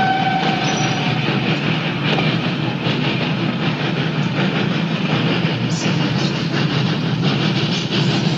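Passenger train running along the track and pulling away, its wheels clattering over the rail joints in a steady rumble. A held tone fades out about a second in.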